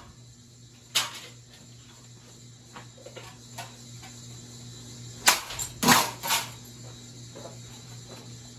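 Plates thrown into a running hugger ceiling fan, striking the blades with sharp crashes: one about a second in, then three close together between about five and six and a half seconds. Under them runs the fan's steady hum.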